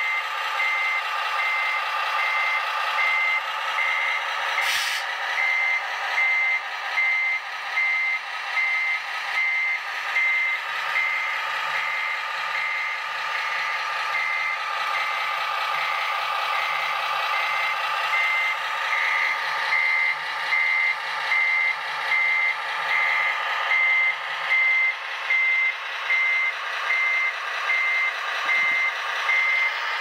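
RC truck sound module playing a diesel engine running with a reversing beeper pulsing steadily over it, a bit faster than once a second. The sound is thin, with no bass, as from a small onboard speaker.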